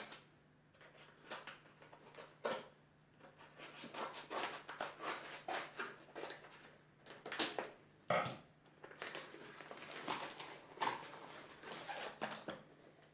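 Packaging being handled and opened by hand: irregular crinkling, rustling and small clicks, with a faint steady hum underneath.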